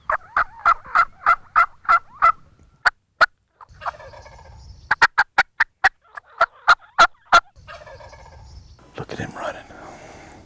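Wild turkey yelping: runs of short, sharp, evenly spaced notes, about three a second, in three bursts, followed near the end by a rougher, longer call.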